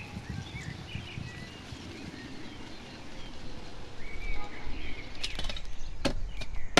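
Birds chirping here and there over outdoor background noise, with a low rumble that grows from about four seconds in and a few sharp clicks or knocks near the end.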